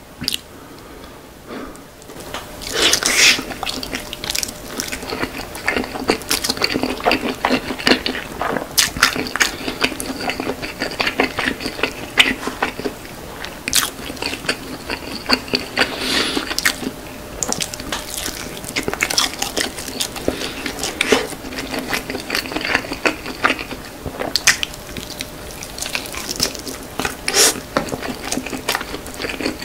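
Close-miked mukbang eating sounds: biting into and chewing a glazed roast chicken leg. Many short, sharp, irregular clicks and crunches of teeth, skin and meat, loudest with a big bite about three seconds in.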